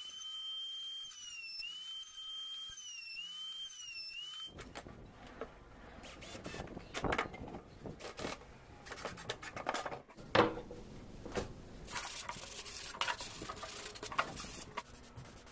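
A small high-speed power tool whining, its pitch dipping several times as if under load, cuts off about four and a half seconds in. Irregular scraping and rubbing strokes on wood follow, like sanding by hand, with one sharper knock near the middle.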